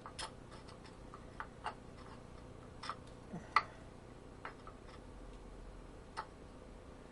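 Scattered light clicks and taps of metal engine parts being handled as the camshaft is turned to find its timing mark: about ten irregular clicks, the sharpest about three and a half seconds in, over a faint steady hum.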